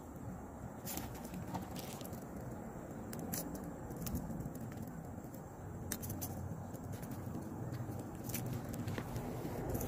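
Scattered sharp clicks and rattles, about one a second, as hands pick through a plastic tackle box of fishing lures, over a steady low rumble.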